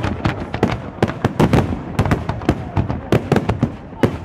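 Fireworks display: aerial shells bursting overhead in a rapid, irregular run of bangs and pops, several a second.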